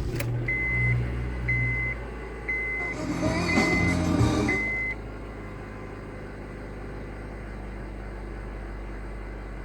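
2006 Honda Civic engine starting and settling into idle, with a dashboard chime beeping about once a second six times during the first five seconds. After that the engine idles as a steady low hum, the loud whirring the owner is unsure is normal.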